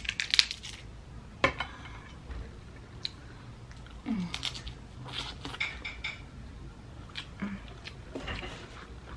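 Boiled shellfish shells being cracked and broken apart: a series of sharp cracks and crunches with small clatter, loudest near the start and at about one and a half seconds, with more clusters in the middle and near the end.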